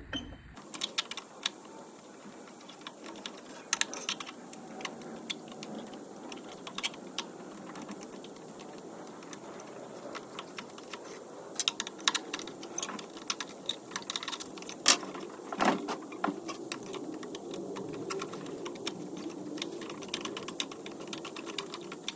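Light, irregular metallic clicks and taps of hand tools working on the muffler bolts of a two-stroke blower engine.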